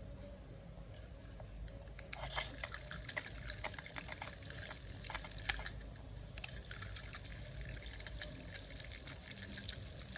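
Faint trickling and dripping of liquid, with many small irregular clicks and splashes.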